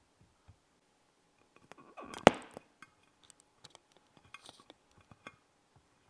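Kitchenware being handled: scattered light clicks and knocks, with one sharp clink a little past two seconds in during a brief scrape.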